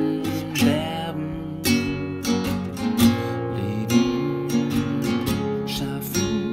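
Acoustic guitar strumming chords, the accompaniment of a song, with a strum stroke about once a second.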